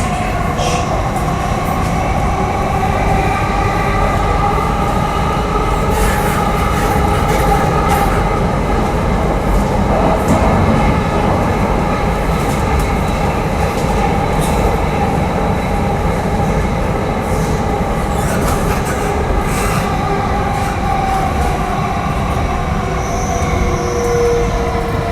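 Metro train running on the rails: a steady heavy rumble with wheel squeal, several whining tones that drift slowly in pitch, and scattered sharp clicks.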